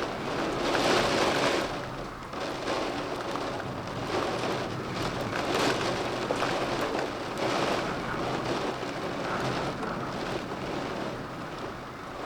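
Storm rain falling steadily, the noise swelling in gusts about a second in and again midway through.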